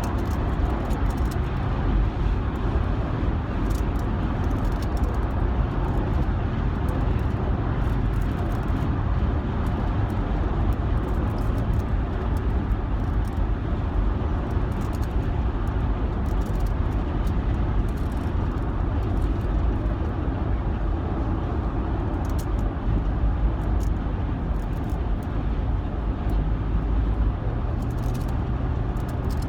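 Steady road and engine noise inside a moving car's cabin at highway speed, with scattered light clicks throughout.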